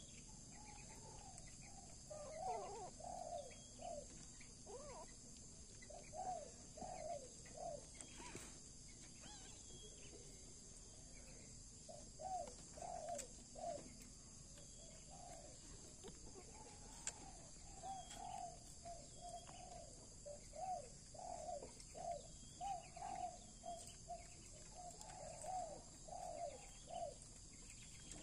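Faint dove cooing: short, soft coos repeated in quick runs, with a pause of a few seconds just before the middle.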